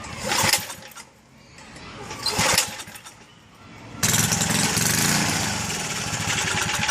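Tiller's small engine being pull-started: two short bursts from pulls on the recoil starter, then it catches about four seconds in and runs steadily for a few seconds. It is struggling to keep running, which the owner puts down to fuel starvation: it is not getting any gas.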